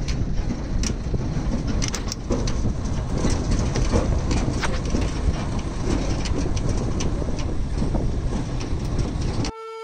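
Safari vehicle driving along a rough dirt forest track: steady rumbling road noise with scattered rattles and knocks. It cuts off abruptly near the end.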